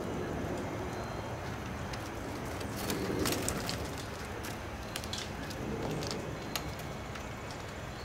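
Birds feeding on seed on a wooden deck railing: scattered sharp taps and ticks over steady outdoor background noise, with a few faint, brief high chirps.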